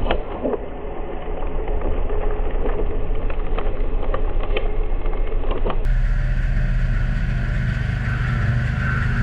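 Mini skid steer's engine running steadily while working a rotary sweeper, with scattered sharp ticks over the first part. About six seconds in the sound changes abruptly to a steadier, lower engine tone.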